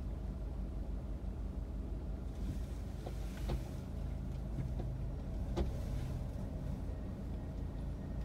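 Steady low rumble of a car's engine and running gear heard from inside the car. Two sharp clicks come through, the second louder, in the middle of the stretch.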